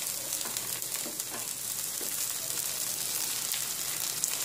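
Thin rava dosa batter frying on a hot tawa with oil spooned over it: a steady sizzling hiss with faint scattered crackles.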